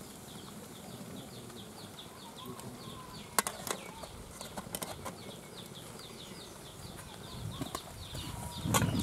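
Small birds chirping steadily in the background, short downward chirps about three a second. There are a few light clicks from the aluminium steamer plate being handled around the middle, and a dull thump just before the end.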